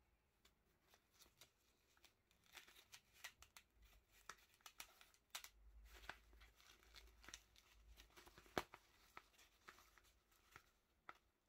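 Faint handling noise from a black nylon knife sheath: fabric rustling and scraping with scattered small clicks as it is flexed and turned over, one sharper click about three-quarters of the way through.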